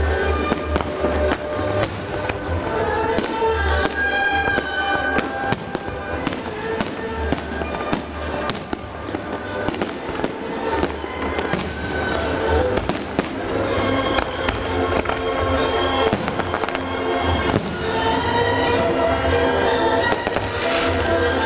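Aerial firework shells bursting in quick succession, many sharp bangs throughout, over loud music.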